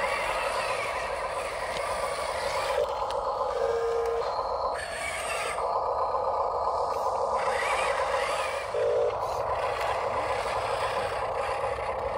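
Small electric motors and gearboxes of Huina scale RC construction models running, a steady mechanical whir and grinding that shifts as the machines work.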